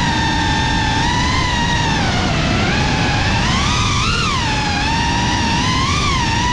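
FPV racing quadcopter's brushless motors and propellers whining, with a rushing noise of air underneath. The pitch rises and falls with the throttle, swelling up briefly as the drone dives down the ramp.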